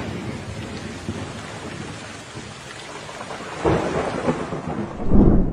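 Thunderstorm sound effect: steady rain with rolling thunder, and two louder peals about three and a half seconds in and near the end.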